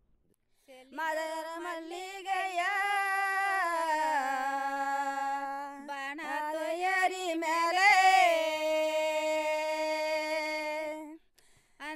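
A woman singing a local South Indian folk song praising a deity, unaccompanied: long held notes with wavering bends, starting about a second in and breaking off near the end.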